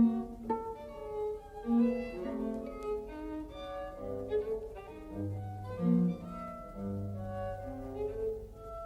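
Music for bowed strings: violin and cello lines moving in short notes, with low sustained bass notes joining about halfway through.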